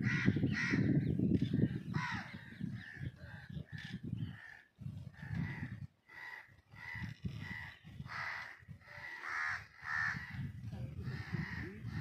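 Crows cawing over and over, a run of short harsh calls, with a low rumble and murmur underneath in the first couple of seconds and again near the end.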